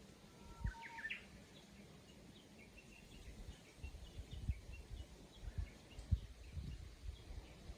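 A Japanese bush warbler sings once about half a second in: a held low whistle that breaks into a quick rising flourish. After it come scattered short, high chirps. Irregular low rumbling thuds, the loudest sounds, come and go throughout.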